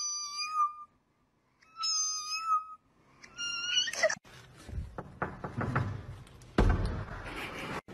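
A domestic cat meowing three times in long, level-pitched calls, followed by rustling and scuffling noise with a loud thump near the end.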